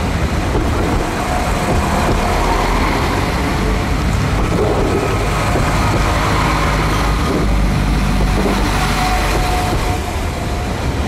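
Irish Rail train running close by: a steady, loud rumble with a faint whine over it.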